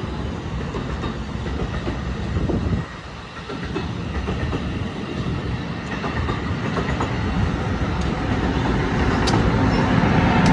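New Jersey Transit double-deck commuter train passing close at speed, steady wheel-on-rail noise from the coaches. It grows louder over the last few seconds as the electric locomotive at the rear of the train comes past.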